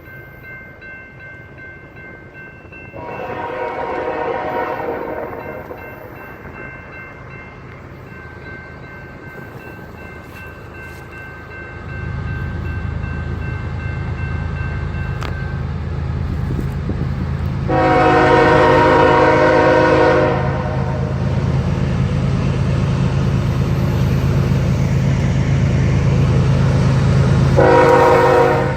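Diesel locomotive air horn sounding three long chord blasts, about a second in, at the midpoint and near the end. A low rumble from the approaching train builds from about twelve seconds in. Steady high ringing tones from the crossing bell carry through the first half.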